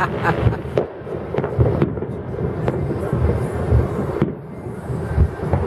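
Distant fireworks: a continuous run of dull low booms, with a few sharp cracks scattered through it.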